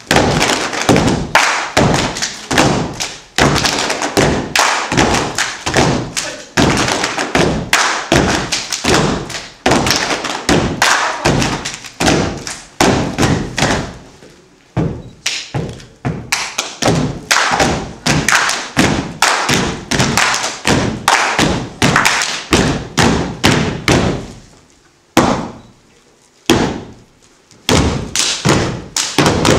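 Step dance group stepping in unison: a fast, steady rhythm of stomps and slaps, with a short break about halfway through and a longer one a few seconds before the end, broken by a couple of single hits.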